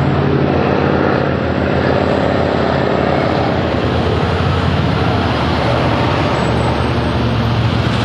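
Heavy diesel trucks climbing a steep grade, engines running hard under load in a steady, continuous low drone, with general traffic noise mixed in.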